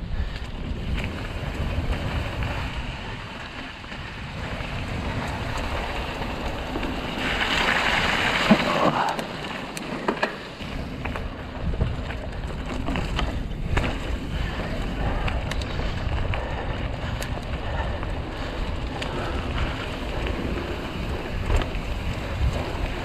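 Mongoose Ledge X1 mountain bike riding down a dirt trail: wind buffeting the microphone and the rush of the tyres on the ground, with scattered clicks and rattles from the bike. About a third of the way in there is a louder rushing hiss lasting a couple of seconds.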